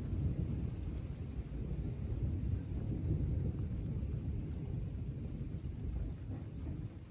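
Low rolling thunder rumbling on and dying away near the end, with light rain faintly underneath.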